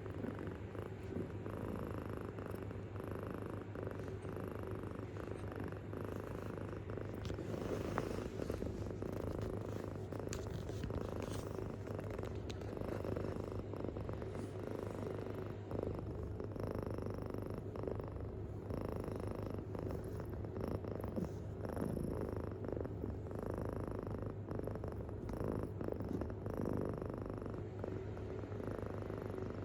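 Kitten purring deeply and steadily, a continuous low rumble of rapid pulses.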